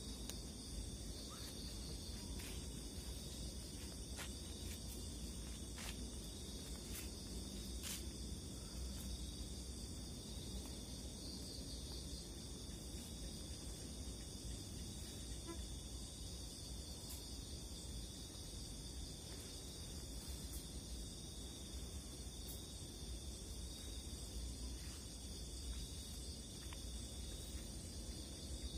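Crickets and other night insects calling in a steady, unbroken chorus, with a few faint clicks in the first several seconds.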